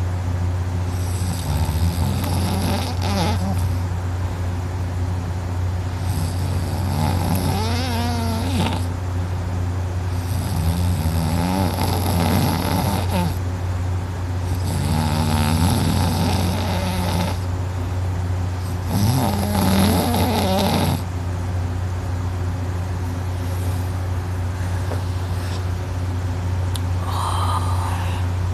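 A drunk sleeper snoring heavily, about five long snores one every four to five seconds, the soft palate and uvula vibrating, then the snores stop about two thirds of the way in. A steady low hum runs underneath.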